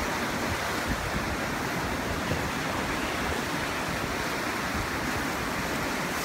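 Ocean surf breaking and washing against black lava rocks, a steady rush of water noise.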